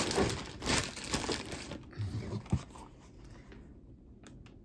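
Strands of glass pearls clicking and rattling against each other as they are handled. The rattle is dense for about the first two seconds, then thins to a few light clicks.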